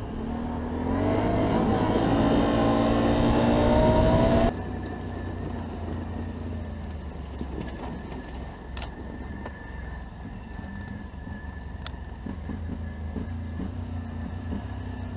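Can-Am quad's engine accelerating, its pitch climbing steadily for about four seconds. The sound then drops abruptly to a quieter, low, steady running at slow speed, with a faint high whine and two sharp clicks.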